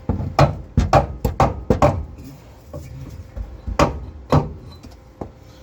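Sharp taps and knocks of a welding electrode against steel as the welder tries to strike an arc that will not light. A quick run of about seven taps comes in the first two seconds, then three more spaced out, with no steady arc sound.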